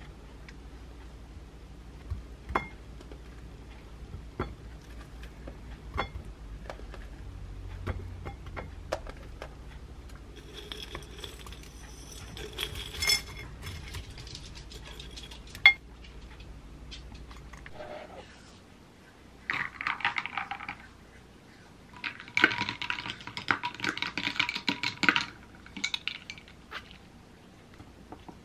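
A metal spoon clinking and scraping against a glass jam jar and a ceramic bowl, with sharp single clinks scattered through the first half. Dry granola rattles out of a glass jar into the bowl partway through. Near the end comes rapid spoon clatter in the bowl as the yogurt and granola are eaten.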